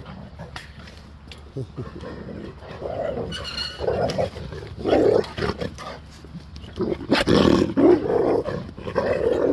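Two large dogs play-fighting, growling and snarling in irregular bursts, loudest about seven seconds in.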